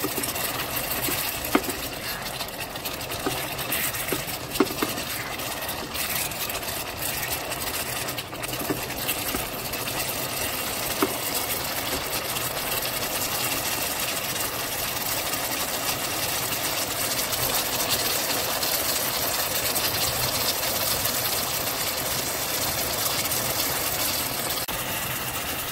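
Prawns in a watery tauco sauce simmering in a pan: a steady bubbling sizzle. A wooden spatula knocks and scrapes against the pan a few times in the first several seconds.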